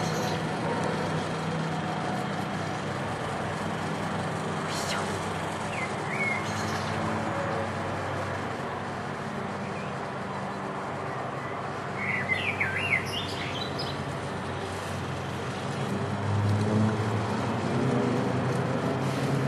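Aircraft engine drone heard from a distance, steady and then growing louder over the last few seconds as the plane comes nearer. Birds chirp briefly a few times over it.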